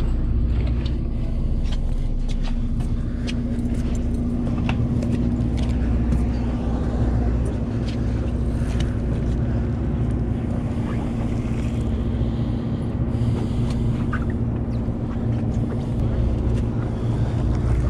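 Sportfishing boat's engine running steadily, a low drone with a constant hum, with scattered small clicks and knocks on deck.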